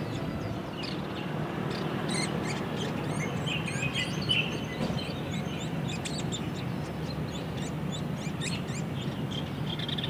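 Many short, high bird chirps in quick succession, densest a few seconds in, over a steady low background rumble.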